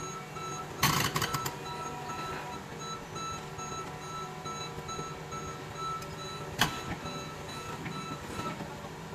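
Caterpillar 320 excavator's diesel engine running steadily while its travel alarm beeps over and over as it moves on the lowbed trailer. Sharp metallic clanks come about a second in and once more near seven seconds.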